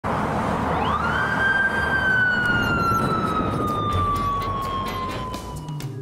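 Japanese police motorcycle siren giving one long wail. It rises quickly about a second in, then slowly falls in pitch, over traffic noise.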